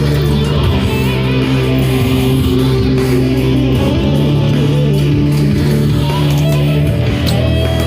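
Electric guitar being played as a right-hand picking warm-up exercise, with notes and chords held for a second or more at a time.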